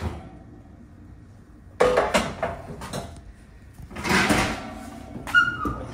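A metal baking pan being taken out of a hot oven and set down on the gas stove's grates, clattering against metal about two seconds in and again about four seconds in, along with the oven rack.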